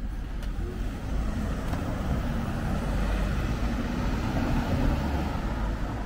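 A car driving past over steady street traffic, its engine and tyre noise building to a peak about five seconds in.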